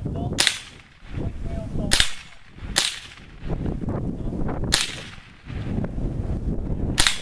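Mexar .22LR rifle by Mendoza firing five sharp cracks, about one to two seconds apart.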